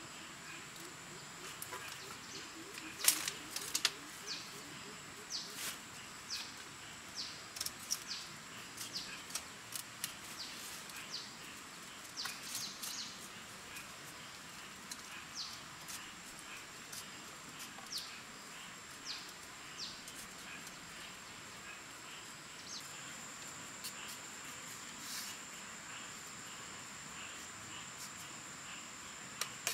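Forest ambience with a steady high-pitched insect drone and short falling bird chirps repeating every second or so. A few sharp knocks and clacks of bamboo slats being handled, the loudest about three seconds in.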